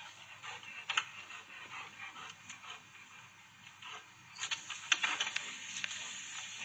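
Faint scattered clicks. About four seconds in, water starts hissing and splashing out of a garden hose onto concrete as a dog snaps at the spray, with more frequent clicks and splashes.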